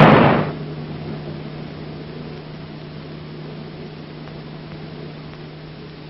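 The roar of a heavy gun blast dies away in the first half second. Only a steady hiss and a low hum remain for the rest.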